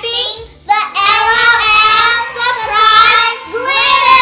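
Young girls singing together in long, held, wavering notes, with a short break about half a second in.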